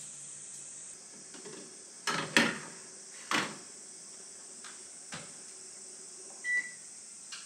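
Knocks and clatters of a pizza on its baking sheet being put into a countertop oven and the oven door being shut, then one short electronic beep as the oven's dial is turned to set it.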